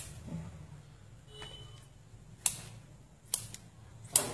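Kitchen scissors snipping through boiled freshwater mussel meat: four sharp, irregular clicks as the blades close.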